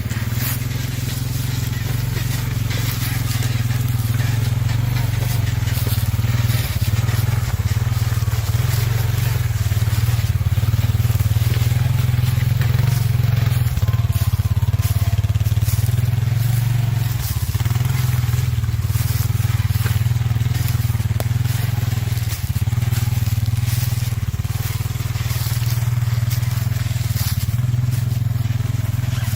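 An ATV engine running steadily at low, even revs, with many small crackles and ticks over the top.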